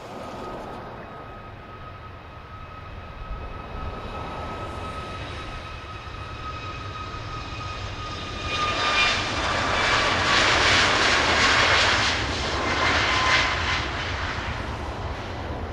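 Fixed-wing aircraft passing with its engines running. A steady engine whine sits over a rushing noise that grows much louder about halfway through, stays loud for several seconds while the whine drops slightly in pitch, then eases off near the end.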